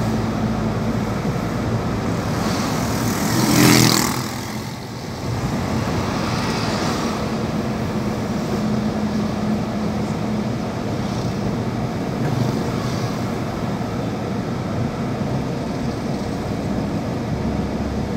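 Steady engine and tyre noise of a car driving along a town road, with a brief louder swell about four seconds in.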